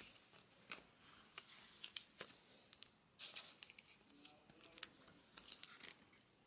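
Faint rustling and small clicks of Bowman Chrome baseball cards being handled and slid against one another, with a brief swish about three seconds in.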